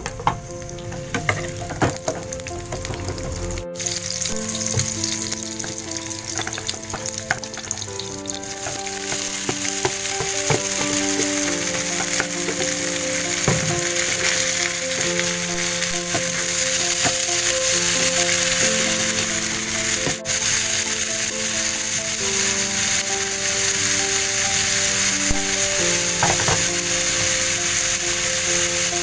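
Shallots and sliced bitter melon stir-frying in oil in a non-stick pan, sizzling, with a wooden spatula clicking and scraping against the pan. About eight seconds in the sizzling grows much louder and stays loud as the wet, freshly washed bitter melon hits the hot oil.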